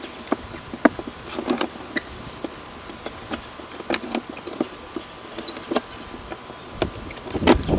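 Scattered clicks and light knocks of beehive parts being handled as the hive is closed up, with a louder knock and scrape near the end.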